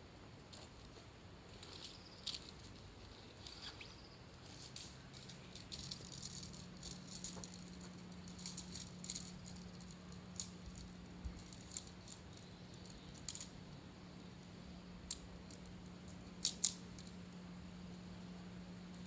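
Irregular light clicks and rattles of small objects being handled, with a sharp double click near the end, over a faint steady low hum.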